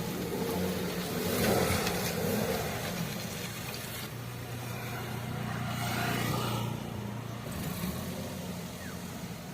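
Maruti Suzuki Alto K10 small car's three-cylinder petrol engine running at low revs as the car is driven slowly over rough, uneven ground. The engine note swells a little in the middle and eases near the end.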